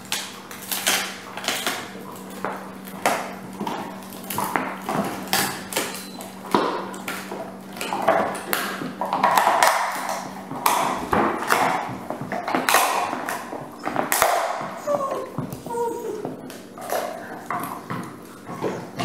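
German Shepherds gnawing on a hard chew, a steady irregular run of sharp clicks and cracks of teeth working on it.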